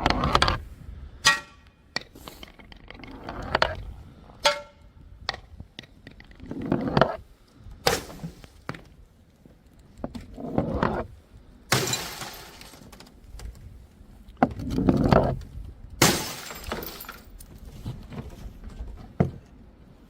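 Glass bottles striking stairs and breaking: a string of separate clinks and crashes, some ringing briefly, with two longer bursts of shattering glass about twelve and sixteen seconds in.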